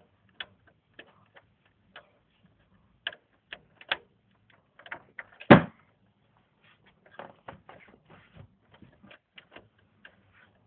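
Irregular plastic clicks and taps of a PCI Express power cable connector being fumbled into the power socket at the end of a graphics card inside a PC case, with one louder knock about five and a half seconds in.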